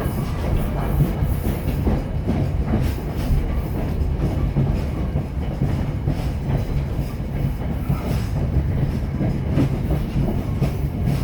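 Railroad passenger coach rolling along the track, a steady low rumble with wheels clicking over the rail joints.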